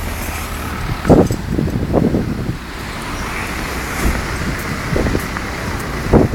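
Strong wind buffeting the microphone: a steady low rumble with louder gusts about one and two seconds in and again near the end.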